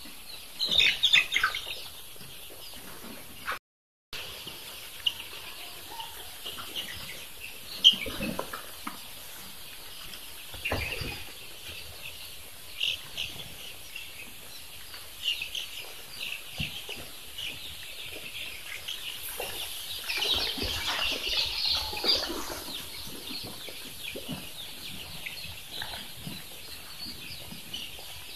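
A flock of young layer-type chicks peeping: many short, high chirps overlapping, busiest about two-thirds of the way in.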